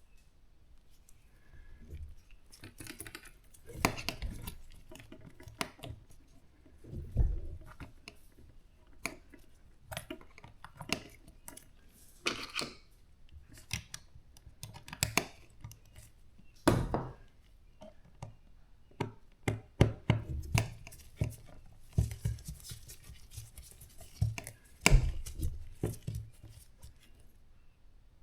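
Irregular knocks, clicks and short scrapes of hard parts being handled and fitted during hands-on repair work, with a few louder clunks.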